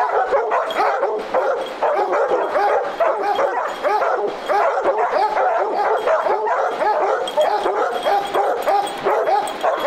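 Several hounds baying nonstop at a treed bobcat, their overlapping calls running together without a break: the tree bark that tells the hunter the cat is treed.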